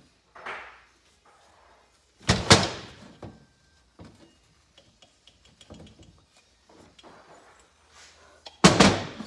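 Heavy metal engine parts handled on a metal workbench: a couple of loud clunks about two and a half seconds in, small clicks and scrapes after, then another pair of heavy clunks near the end as the KZ400's cylinder block is set down on the bench.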